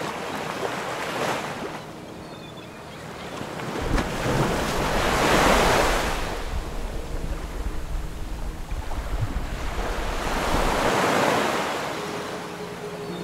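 Sea waves washing, with wind, rising and falling in slow swells several seconds apart, with a low wind rumble on the microphone through the middle.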